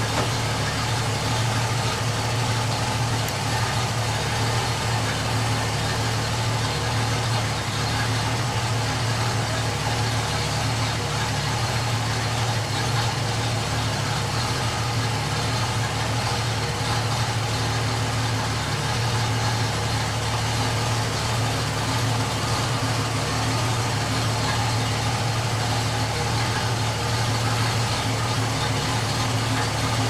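Ford 200 cubic-inch inline-six with Holley Sniper throttle-body fuel injection, idling at around 750 rpm during a vacuum-leak check around an epoxied pinhole in the intake's braze joint.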